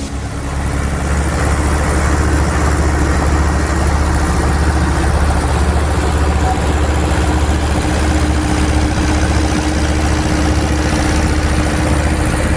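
Ursus tractor's diesel engine running steadily at an even speed, a deep hum with a steady tone.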